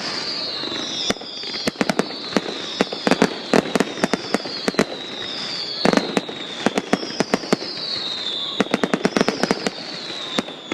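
Fireworks going off: sharp bangs and rapid crackling pops, some in quick clusters, with a high falling whistle that repeats about once a second.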